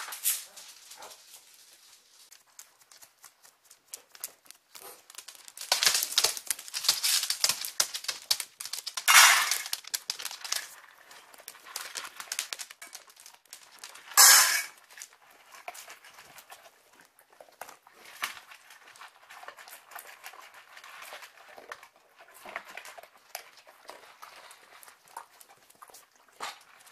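Several pet dogs moving about indoors with a person, with many small clicks and taps and short loud bursts of noise, the loudest about nine and fourteen seconds in.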